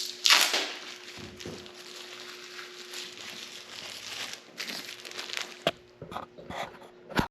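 Crinkling and rustling of a Vicor waterproofing membrane roll being handled and laid onto a wooden beam, loudest in the first second. A few sharp clicks or knocks come near the end.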